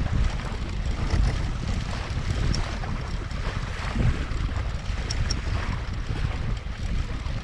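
Wind buffeting the microphone in a steady low rumble, over water rushing and splashing along the hull of a Laser Pico sailing dinghy under way.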